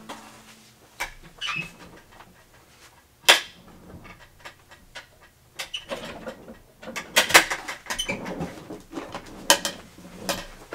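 Handling noises from someone moving objects out of shot: scattered clicks and a sharp knock about three seconds in, then a run of rustling and scraping in the second half.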